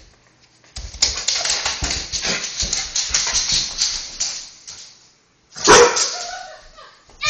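A dog close to the microphone, with rapid rustly snuffling noise for several seconds, then one short loud bark a little after five seconds in.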